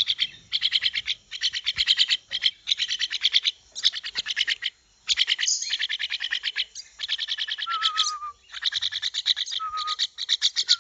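Young mynas giving rapid, harsh, chattering begging calls in repeated bursts, the calls of a fledgling that still can't feed itself.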